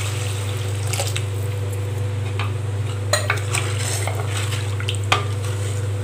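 Water poured from a steel vessel into a clay pot of sautéed onions and garlic near the start, then a wooden spatula stirring the broth and knocking against the clay pot a few times, over a steady low hum.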